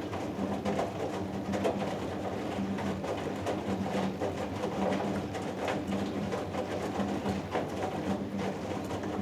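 Hoover Dynamic Next DXA610IW3 front-loading washing machine tumbling its load on a cotton 90 °C cycle. The drum motor gives a low hum that swells and fades about once a second, over the uneven swish and thud of wet laundry and water in the turning drum.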